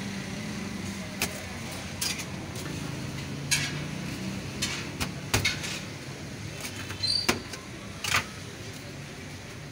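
Steady road-traffic hum, with scattered sharp taps, clicks and rustles from burgers and wrappings being handled on a stainless-steel counter, about nine in all.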